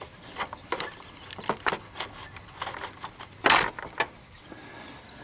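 Hand-handling noise among plastic corrugated wire loom and hoses in an engine bay: scattered light clicks and rustles, with one louder scraping rustle about three and a half seconds in, as fingers work at the transmission vent cap.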